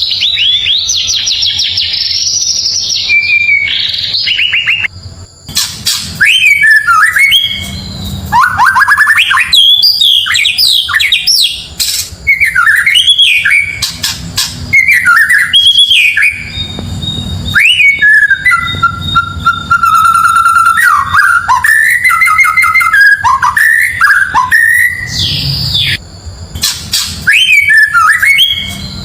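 White-rumped shama (murai batu) singing a long, varied song of whistles, rapid trills and sweeping notes, with short breaks about five seconds in and near the end. A few sharp clicks fall among the phrases.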